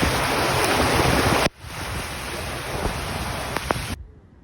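Loud storm noise of wind and water, with wind buffeting the microphone. It cuts off abruptly about a second and a half in, starts again a little quieter, and falls away near the end.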